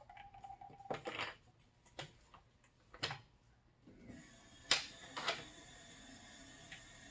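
Hard plastic parts of a DI water-filter canister being handled and screwed on: a few separate clicks and knocks, with a faint steady hiss coming in about halfway through.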